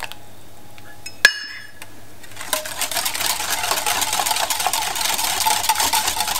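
Wire balloon whisk in a ceramic bowl of egg batter: one sharp ringing clink about a second in, then from about two and a half seconds fast, steady whisking, the wires scraping and rattling against the bowl.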